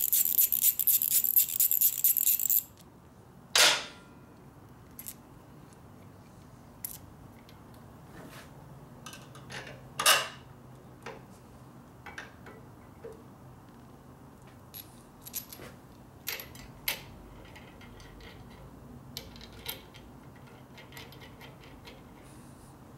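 Metal tools and parts being handled: a jangling metallic rattle that stops about three seconds in, then scattered clinks, with louder metal clanks about four seconds in and again about ten seconds in.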